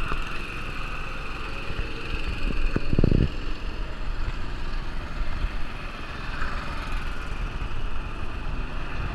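Go-kart engines running steadily as karts drive round a track, with a short low thump about three seconds in.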